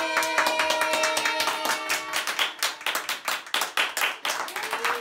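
Hands clapping fast and continuously from a small group of people, with held steady tones fading out in the first second or so and a brief rising cheer near the end.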